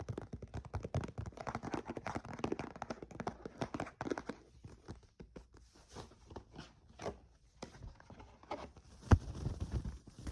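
Fast ASMR trigger sounds: rapid tapping, scratching and rustling on objects close to a microphone, dense for the first few seconds and then sparser, with one sharp, louder knock about nine seconds in.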